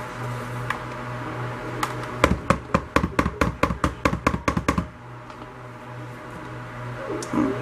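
A quick, even run of about fifteen sharp taps, some six a second for two and a half seconds, from a stick blender's head being knocked against the rim of a plastic mixing bowl to shake off soap batter. A low steady hum runs underneath.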